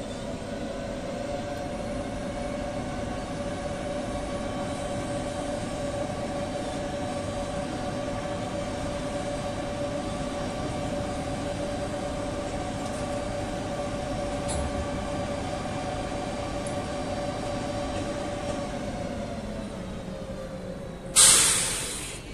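Electric locomotive moving during shunting, with a steady whine over running noise that fades away near the end. It is followed by a sudden loud burst that dies away over about a second.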